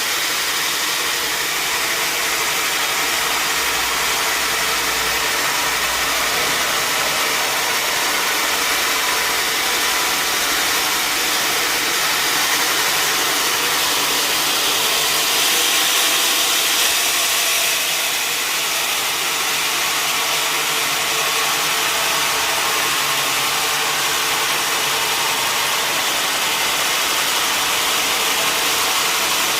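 Sawmill machinery running steadily: a loud, even noise with a faint steady hum underneath, swelling slightly about halfway through.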